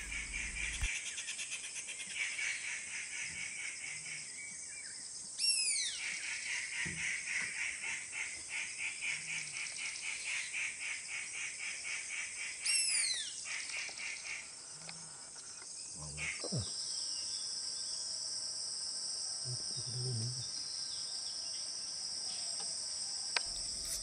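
Forest insects shrilling steadily, with a fast pulsing chirr for the first half. A loud, sharply falling bird call cuts through twice, about five seconds in and again near thirteen seconds.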